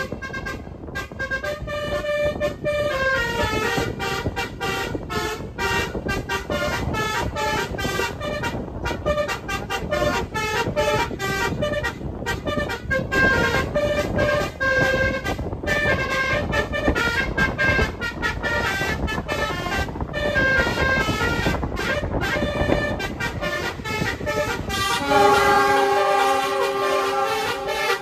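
Basuri 'telolet' horn module on an SUV playing a fast melody of multi-tone horn notes that jump in pitch and break off again and again, over the car's engine and road noise. About 25 seconds in, a steady multi-tone horn chord takes over.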